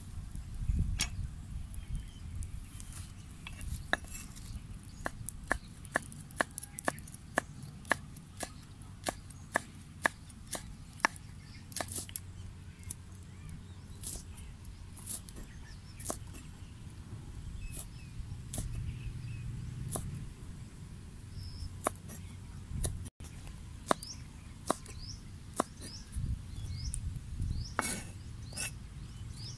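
Cleaver chopping on a round wooden chopping board: sharp, separate knocks, several a second at times and thinning out later.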